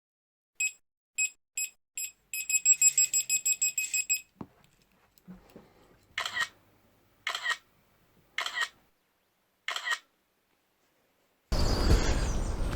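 Electronic beeps: four single short beeps, then a fast run of about eight beeps a second for two seconds, then four longer separate tones. A steady rushing noise starts near the end.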